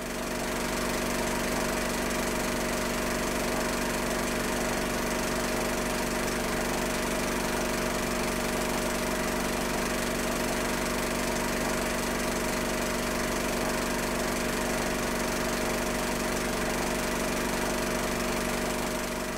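A steady mechanical whirr with a constant hum beneath it, unchanging throughout. It swells up at the start and tails off near the end.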